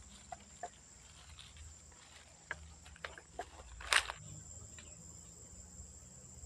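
Insects droning with a steady high-pitched tone, with scattered light clicks of close handling and one louder sharp rustle about four seconds in.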